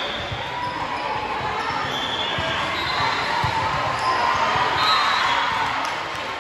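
Busy volleyball hall: many voices chattering and echoing in the large room, with balls thudding on the courts and short high squeaks scattered through.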